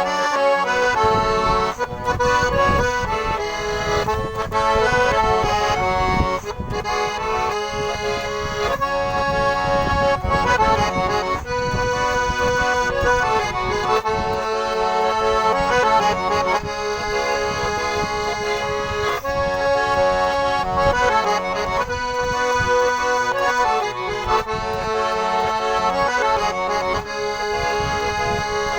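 Garmon (Russian button accordion) playing an instrumental passage of a fast pop-folk tune: a melody over a steady rhythmic chord-and-bass accompaniment.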